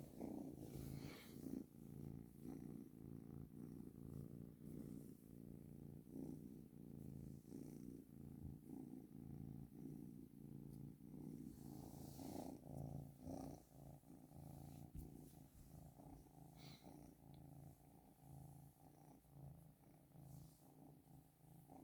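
A kitten purring steadily, a low rumble that pulses without a break.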